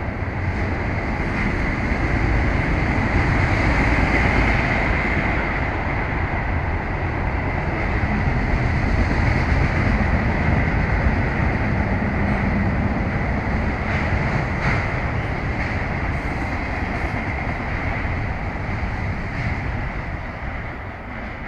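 Freight train rolling past, a steady rumble and rattle of wheels on rail that fades near the end.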